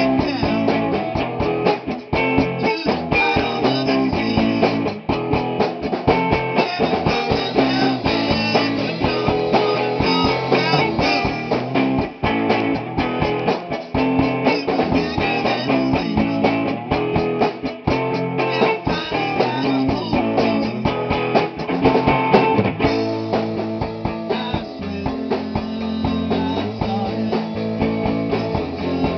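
Rock band playing at rehearsal: electric guitars over a drum kit. The drum hits thin out about 22 seconds in.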